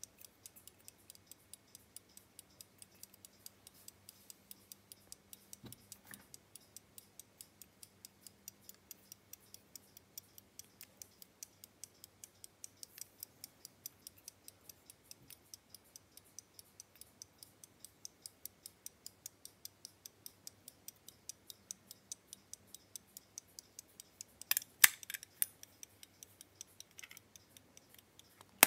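Verge escapement of an antique verge fusee pocket watch ticking, quick and even at about five ticks a second. A few louder clicks come near the end.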